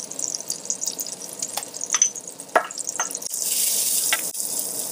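Sliced shallots and crushed juniper berries sizzling in hot oil in an enameled pot, with a few sharp clicks as a wooden spoon stirs them. The sizzle grows louder about three seconds in.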